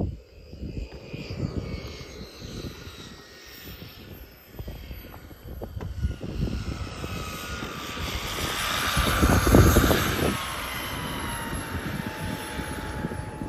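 Radio-controlled model airplane's propeller motor whining while it lands, the pitch slowly falling as it is throttled back. The sound is loudest about nine to ten seconds in, as the plane rolls out on the runway, with wind buffeting the microphone underneath.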